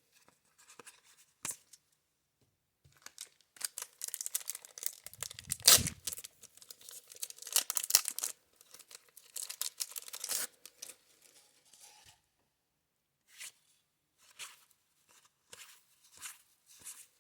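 A 1990 Score wax pack being torn open, the wax-paper wrapper crinkling and ripping for several seconds, loudest a few seconds in. Afterwards a few scattered soft clicks and swishes of trading cards being handled.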